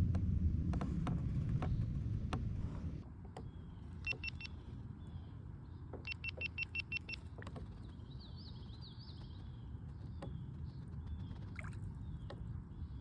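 Low rumble of handling and wind on a chest-mounted GoPro with scattered clicks, dropping away about three seconds in. After that come sharp clicks, two quick runs of high pips and faint chirps over a low outdoor hiss.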